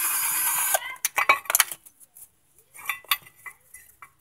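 A steady hissing noise cuts off suddenly under a second in, followed by metal parts clinking and knocking as a brake caliper is handled and set against a steel adapter bracket and disc rotor.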